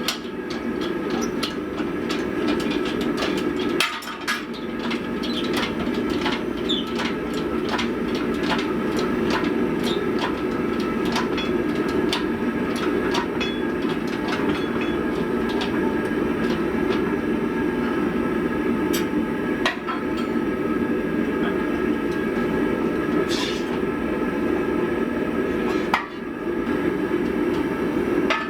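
Forging-shop noise: a steady loud machine drone with irregular light metallic clicks and taps through it, thicker in the first half, with brief dips twice.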